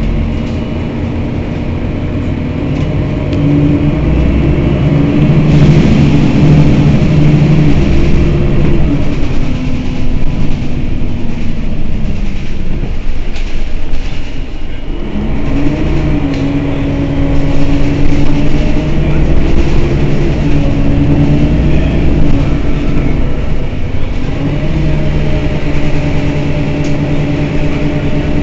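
Mercedes-Benz Citaro city bus's engine idling at a standstill. Its pitch rises and falls a few times, and it sags briefly about halfway through before picking up again.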